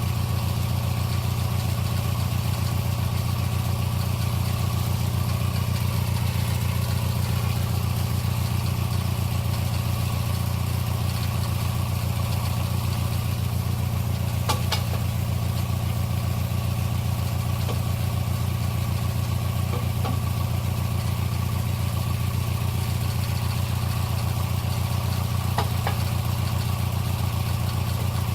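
Small Snapper lawn mower engine running steadily at constant speed, powering a homemade sawmill. A sharp click sounds about halfway through, and another near the end.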